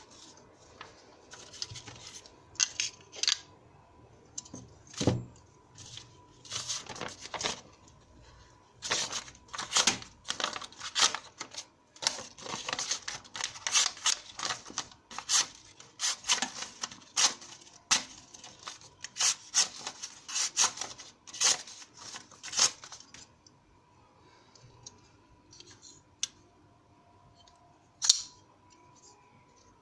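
Flipper folding knife, a Chinese copy of the Shirogorov Hati 95, being flicked open and closed again and again: sharp metallic clicks and snaps of the blade deploying, locking and shutting, in irregular quick runs. The clicking thins out about three-quarters of the way through, with one last sharp click near the end.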